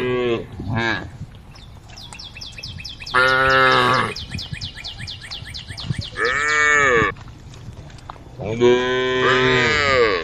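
Cattle mooing repeatedly: a short moo near the start, then three long, loud moos a couple of seconds apart, the one in the middle bending up and then down in pitch.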